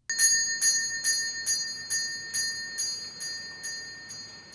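Spring-mounted servant's call bell ringing, its clapper striking about twice a second over a sustained ring as the bell shakes on its spring, slowly dying away.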